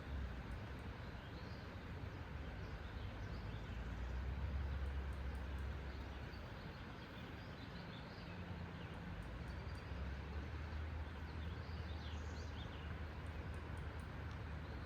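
Creek water rushing steadily, with scattered short bird chirps over it and a low rumble that swells and fades.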